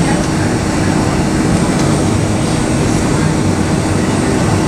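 Steady cabin noise inside a Boeing 757-200 on the ground after landing: a low rumble from the engines at idle with air-conditioning hiss and a constant hum.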